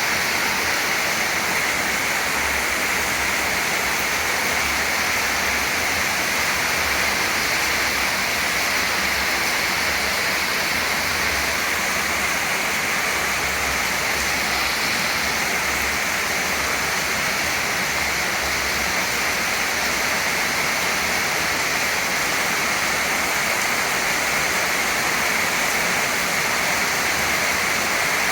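Steady rain falling, an even unbroken hiss that neither rises nor falls.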